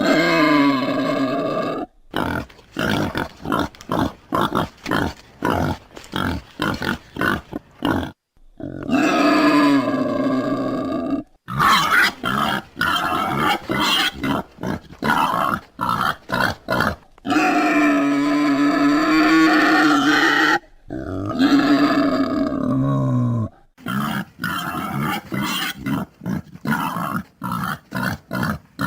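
Wild boar grunting in fast runs of short grunts, broken by several long, drawn-out squealing calls of two to three seconds each.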